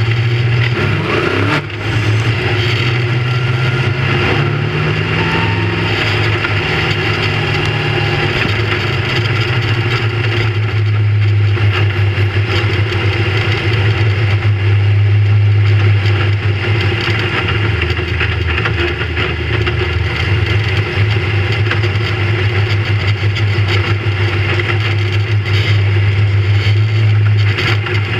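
Big-block V8 of a dirt modified race car, heard from inside the cockpit, running at a fairly steady pitch. There is a brief dip and a sharp click about a second and a half in.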